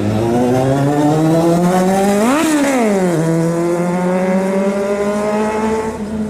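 Inline-four sport motorcycle engine accelerating: the revs climb steadily, peak and fall back about two and a half seconds in, then climb again and drop off near the end.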